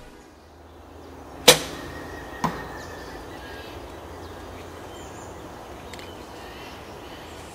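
Old Hoyt compound bow, shot without a sight and released with the fingers: the string lets go with a sharp snap about a second and a half in, followed by a fainter knock about a second later.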